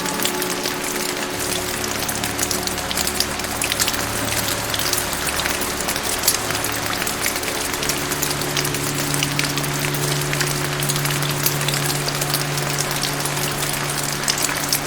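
Steady rain falling: a dense hiss full of separate drop hits. Under it runs soft background music of low held notes; the chord comes in after about a second and moves to a higher one about halfway through.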